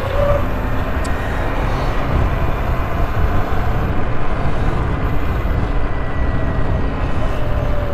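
Electric dirt bikes riding down a street: a steady low rumble of wind and road noise, with a faint motor whine that rises and falls.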